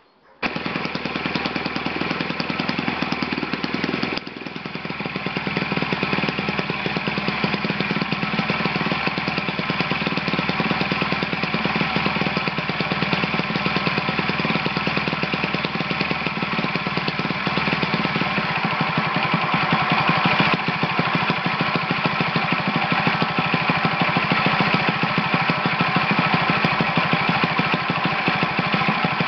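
Enya 90 4C single-cylinder four-stroke glow engine running on a test stand, exhausting through a J'Tec JT-M9S in-cowl muffler. It cuts in sharply just after a brief gap, drops in level about four seconds in and builds back up over the next few seconds, then runs steadily.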